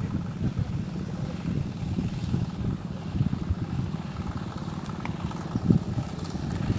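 Small boat's motor running steadily with a low rumble, with wind buffeting the microphone.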